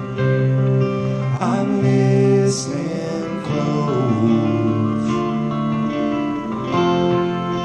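Slow acoustic folk music: a guitar playing under sustained notes, with some singing between the lyric lines.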